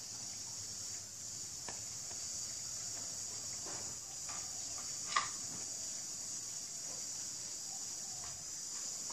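Steady high-pitched insect chorus, with scattered faint clicks and one sharper click about five seconds in.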